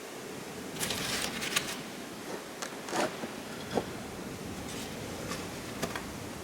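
Scattered scrapes and light knocks as the wooden parts of a beehive are handled and fitted, a cluster of them about a second in and single sharper clicks later, over a steady background hiss.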